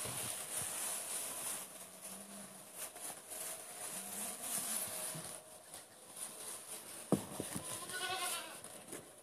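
Young goat kids in a straw-bedded pen, one giving a high bleat near the end, with a single sharp knock just before it.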